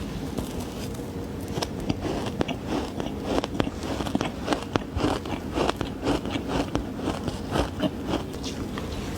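Close-up bites into frozen green matcha ice: a steady run of dry, crackling crunches, several a second, as the teeth break through the powdery ice.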